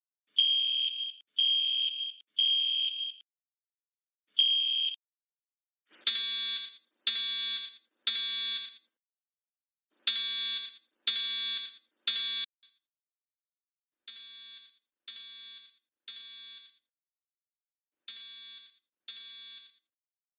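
School fire alarm sounding the evacuation signal: a high, pure beep repeating about once a second, then from about six seconds in a harsher, buzzier horn tone pulsing in groups of three. The last few groups are quieter.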